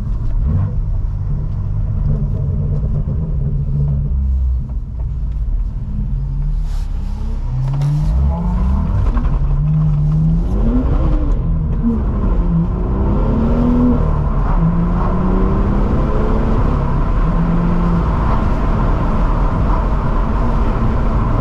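BMW M2's turbocharged straight-six, with a modified aftermarket exhaust, heard from inside the cabin on the move. It drones steadily at first, then about a third of the way in the revs climb and fall back several times through gear changes before settling into a steady cruise.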